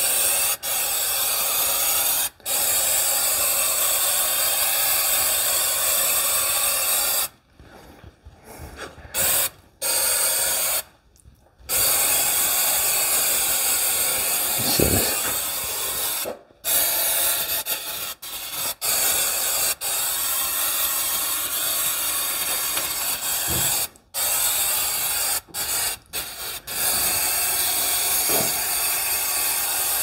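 Aerosol can of black rock guard coating spraying into a car's wheel well: a steady hiss in long sprays broken by several short pauses.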